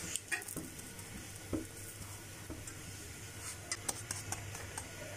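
A bun toasting in a little oil on a flat pan with a light sizzle, while a slotted metal spatula scrapes and taps against the pan several times, a few of them close together near the end.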